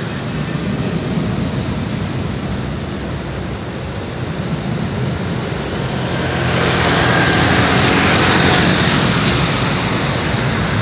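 Jet engines of a Boeing 787 airliner running as it rolls along the runway: a steady low roar that swells louder and brighter about six and a half seconds in.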